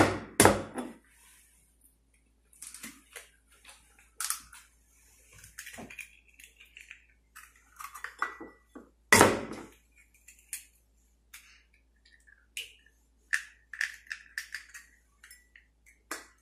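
Raw eggs being cracked on the rim of a white ceramic bowl: sharp knocks of shell on china, a few at the start and the loudest about nine seconds in, with small crackles and clicks of shell being broken and pulled apart between them.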